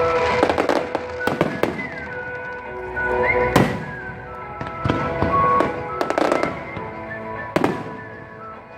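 Aerial fireworks bursting in an irregular series of loud bangs, some followed by crackling, over music playing along with the show.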